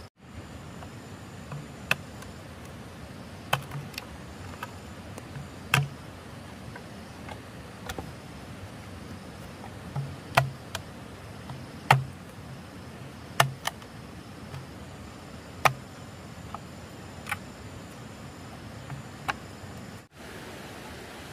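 A series of irregular sharp knocks, one every second or two, each with a short low thud, over a steady background hiss.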